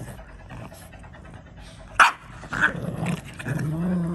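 Two French bulldogs play-fighting: a sharp bark about two seconds in, a second shorter yap just after, then a drawn-out growl near the end.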